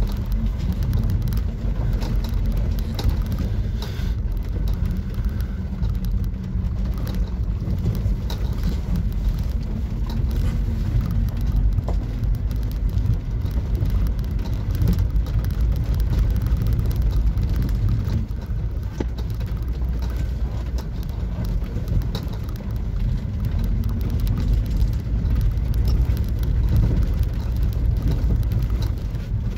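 Compact camper van driving down a rough dirt and gravel track: a steady low rumble of engine and tyres, with many small clicks and ticks from stones and loose surface under the wheels.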